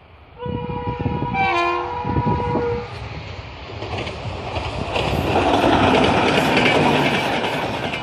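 Train horn sounding for about two and a half seconds, then a train rushing past with wheel clatter that swells and fades away near the end.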